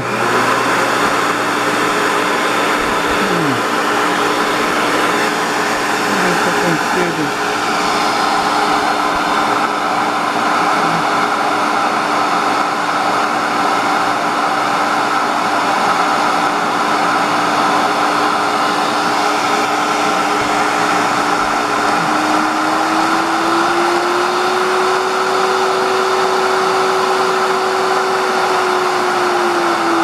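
Philco PLQ1400 1400-watt blender motor running steadily with a hum, its pitch rising about two-thirds of the way through and dropping again near the end. The blade has no force: it cannot even stir plain water in the jar.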